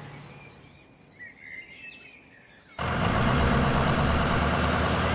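Birds chirping for the first few seconds, then a vehicle engine cuts in suddenly about three seconds in and runs steadily, louder than the birds.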